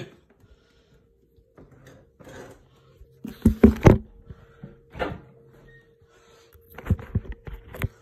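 Mini fridge door being opened and the fridge handled: a few clunks and knocks of its door and fittings, the loudest a little past three seconds in, with a quick run of sharper knocks near the end.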